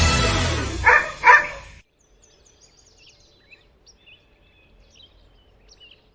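Music ending, with a dog barking twice about a second in, then faint bird chirps.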